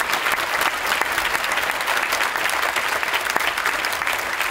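Large audience applauding steadily, many hands clapping at once in a dense, even wash.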